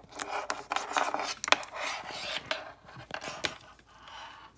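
A coiled keyboard cable being handled and uncoiled on a desk: rubbing and rustling with several sharp clicks and taps.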